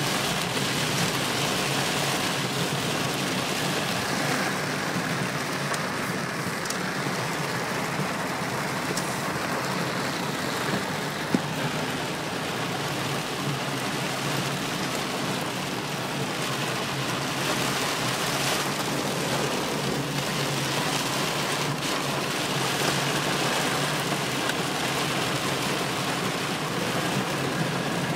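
Heavy storm rain pelting a car's windscreen and roof, heard from inside the moving car: a steady, dense hiss with the car running underneath. A single sharp click about eleven seconds in.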